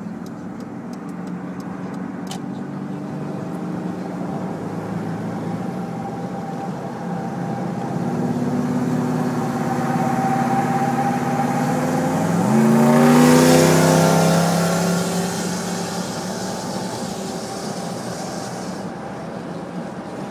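Car engine under hard acceleration, heard from inside a car's cabin. Its pitch climbs slowly, then jumps up sharply about twelve seconds in. A loud rush of wind and road noise swells with it and then fades.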